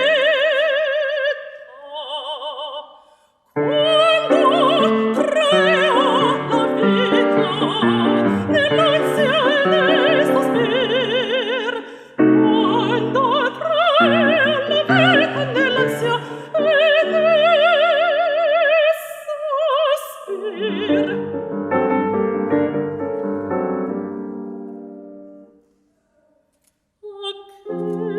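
Chinese art song: a woman singing in classical operatic style with wide vibrato, accompanied by piano. There is a short lull about three seconds in, then voice and piano together. Near the end the piano plays on alone and dies away to a moment of silence before the voice comes back in.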